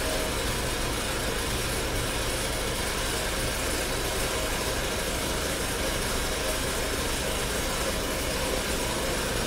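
Urinal flushometer valve flushing after its handle is kicked: a steady rush and hiss of water through the valve into the bowl.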